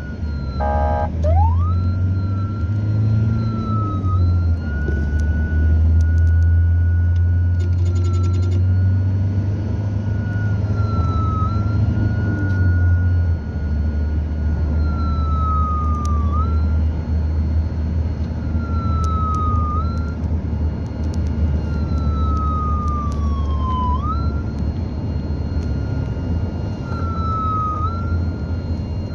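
Police car siren heard from inside the patrol car: a high steady wail that sags in pitch every few seconds and springs back up, with a quick low-to-high whoop about a second in. The car's engine and road rumble run underneath.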